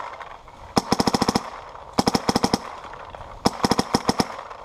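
Axe electronic paintball marker with a Boss bolt firing at about 280 fps in three quick strings of rapid shots, roughly 12 to 15 shots a second, each string under a second long.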